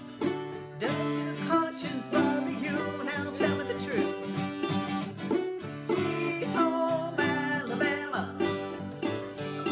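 Ukulele and acoustic guitar played together as a song, with a woman singing along.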